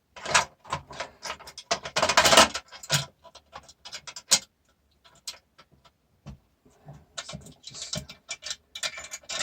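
Hand tools and metal parts of a food mixer clicking, clinking and scraping as a bolt is undone and the casing worked loose: a dense run of quick ticks, then scattered clicks, then another cluster near the end.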